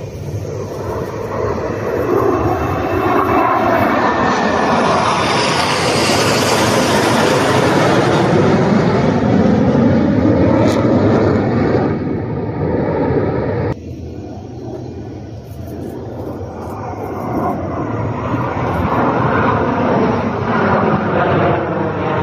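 A formation of KAI T-50B Golden Eagle jets flying past with loud jet engine noise. The noise builds over the first few seconds, sweeping in pitch as the jets pass. It drops off abruptly about two-thirds of the way through, then builds again toward the end.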